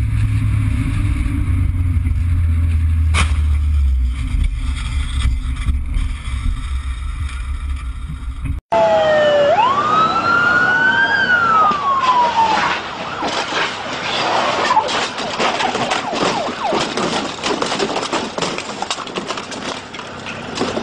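A vehicle's low, steady rumble. After an abrupt cut about eight seconds in, a siren wails up and down for a few seconds, followed by a rough, crackly noise with many clicks.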